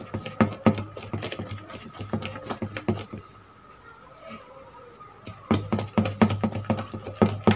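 Urad dal batter being beaten by hand in a plastic bowl: rhythmic slapping strokes, about three or four a second. The strokes ease off for a couple of seconds in the middle, then resume. The batter is being whipped to work air in, so the fritters come out soft and spongy.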